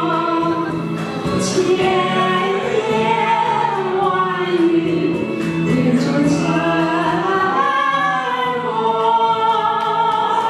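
Karaoke duet: a woman and a man singing into handheld microphones over a recorded backing track.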